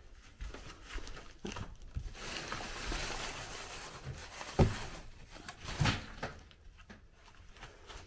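Dry rustling of old newspapers for a couple of seconds, then two sharp thumps, the second about a second after the first, with lighter knocks around them on a wooden plank floor.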